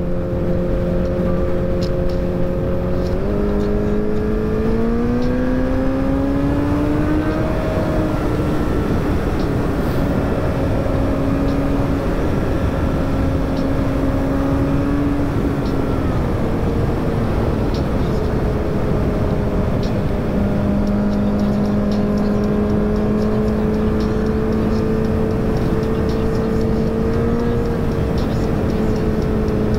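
2018 Honda CBR1000RR Fireblade's inline-four engine running at speed. Its pitch steps up a few seconds in and climbs as the bike accelerates, holds, then drops away about halfway and settles to a steady lower note. Heavy wind rush covers the camera throughout.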